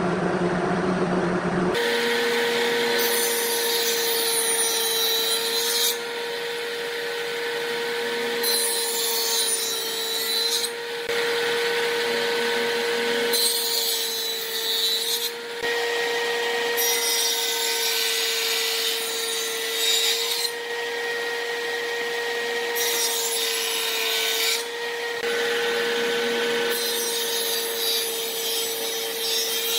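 Table saw running with a steady whine from its spinning blade. Every few seconds a harsher hiss of the blade cutting through wood comes in and lasts two to four seconds, about six cuts in all.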